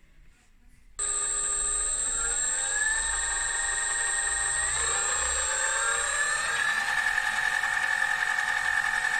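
Mini lathe driven by a Turnigy Aerodrive SK3 6374-149KV brushless outrunner motor starting about a second in and spinning up, its whine rising in pitch in steps before holding steady at maximum speed. A high steady whistle sits over it until about two-thirds of the way through.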